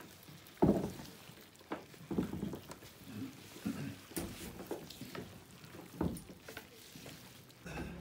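Irregular wet knocks and squelches as a hand works oily ground sesame paste in the mortar of a camel-driven wooden oil mill, around its turning wooden pestle. The loudest thump comes about half a second in, with others spread through the rest.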